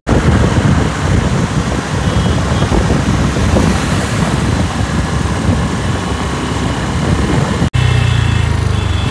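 Wind rushing over the microphone of a moving motorbike, mixed with its engine and road noise. After a sudden break near the end, a steadier low engine hum comes through in slow traffic.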